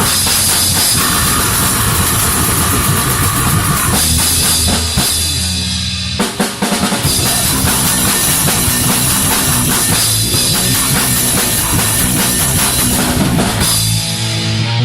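Loud heavy rock music from a band: a drum kit pounding fast, with bass drum and cymbals, over sustained low notes, with a brief break about six seconds in.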